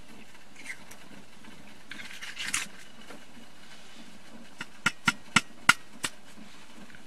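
Stainless steel stovetop coffee percolator perking on a wood stove: a brief hiss about two seconds in, then six sharp pops in quick succession, about three a second, over a steady low background.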